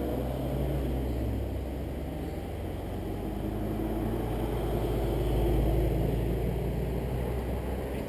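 Cars driving through a hairpin bend one after another, a modern hatchback and then a classic sports coupé. Their engine notes drop early on and then climb, loudest a little past halfway as the coupé comes through.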